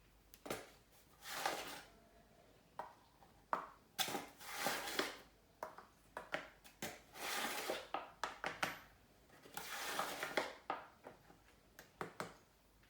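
Cake ingredients being put into and worked in a mixing bowl: repeated noisy scraping or pouring sounds of about a second each, four in all, between sharp clicks and knocks of utensils and containers.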